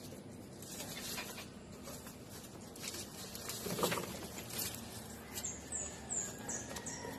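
Fresh grass stalks rustling and ticking as they are pushed into a wooden rabbit hutch. Near the end come five short, high chirps in quick succession.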